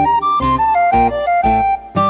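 Background music: a flute-like melody of short held notes over a bass line.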